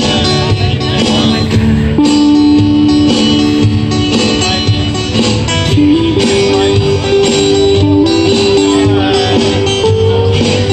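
Two acoustic guitars strummed together in a live performance, with a melody of long held notes over them that slides up to a higher pitch about halfway through.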